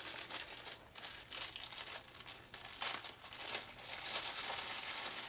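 Clear plastic packaging bag crinkling and rustling in the hands as a small item is unwrapped from it, unevenly, with a louder crinkle about three seconds in.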